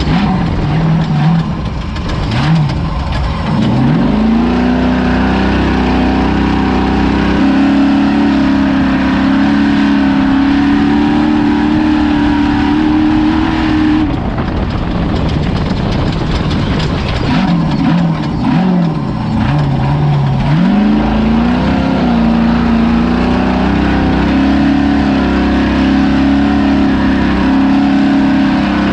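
Ford Ranger desert race truck's engine running hard, its revs dipping and climbing back twice, once a couple of seconds in and again around a third of the way from the end, and held steady between. Scattered knocks and rattles come with the dips.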